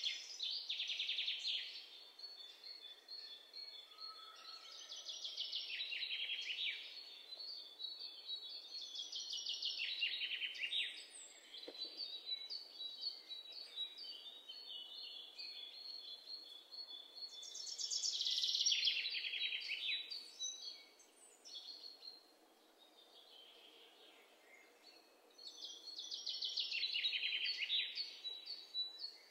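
Bird song: several loud phrases of rapid trills that fall in pitch, coming every several seconds, with fainter chirping between them.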